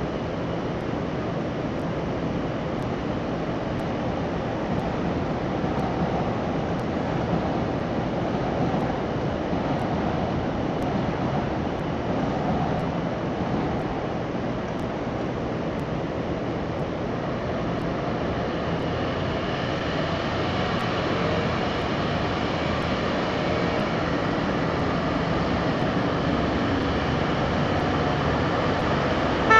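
Steady city traffic noise, a continuous rumble of passing vehicles, with a faint hum rising over it about two-thirds of the way through.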